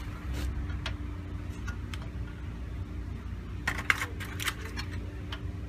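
Light metallic clinks of a 19 mm spanner and tools against the track rod end nut, the ball-joint stud spinning with the nut instead of coming loose. The clinks are scattered, with a quick cluster about two-thirds through, over a steady low hum.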